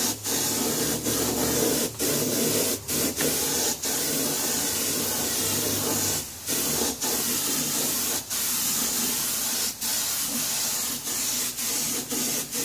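Small compressed-air detail spray gun hissing as it sprays paint thinned with mineral spirits, in steady spurts with short breaks about once a second.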